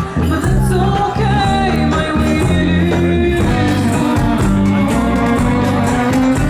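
Live band music with a singer: a song played on stage.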